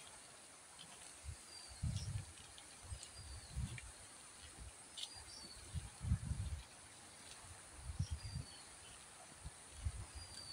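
Outdoor ambience: wind buffets the phone's microphone in irregular low gusts, while a bird repeats a short falling whistle every second or two over a faint steady insect drone.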